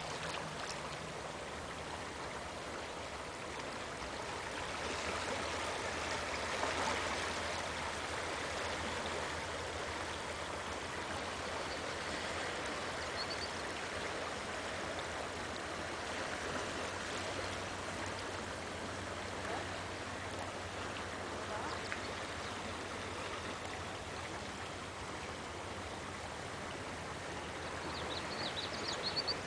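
A fast-flowing river running over shallow riffles: a steady rushing hiss of moving water.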